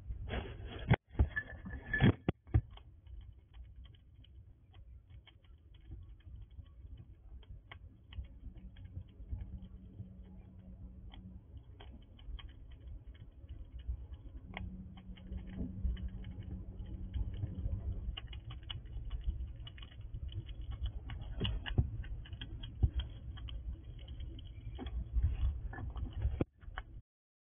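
A squirrel eating close to the microphone: a rapid, irregular run of crisp crunches and clicks as it chews food and seeds from a bowl, loudest in a burst about a second or two in.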